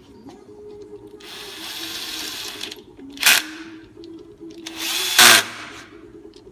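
A power tool run in three short bursts: one of about a second and a half, a brief sharp one, then another ending in a loud peak.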